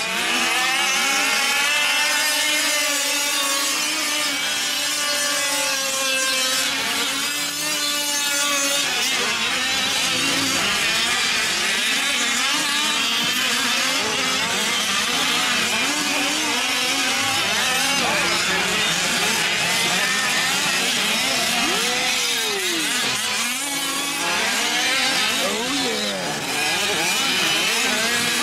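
Several 5th-scale gas RC off-road trucks' small two-stroke engines revving up and down at once, their pitches repeatedly rising and falling as they race.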